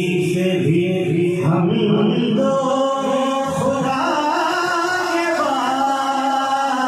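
A man singing a naat, an Urdu devotional song in praise of the Prophet, solo and without instruments. He sings low phrases at first, then higher held, wavering notes from about two seconds in.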